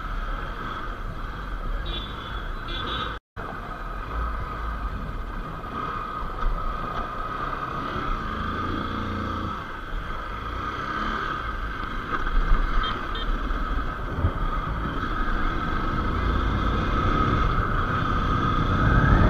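Motorcycle engine running as the bike is ridden, heard from the rider's seat with road noise. The sound cuts out for a moment about three seconds in, and it grows gradually louder over the last several seconds.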